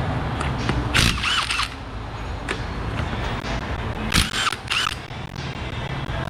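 Cordless impact wrench running off lug nuts in two short hammering bursts, one about a second in and one about four seconds in, its motor whine rising and falling.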